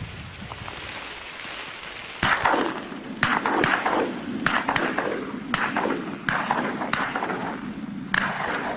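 A volley of shotgun shots at flying ducks: about ten sharp reports begin about two seconds in and continue until near the end, some in quick succession, each with a short echo.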